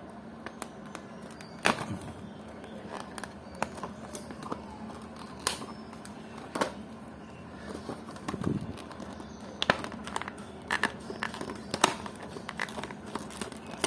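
Stiff plastic blister packaging being cut with scissors and handled: irregular sharp snips, clicks and crackles of the plastic.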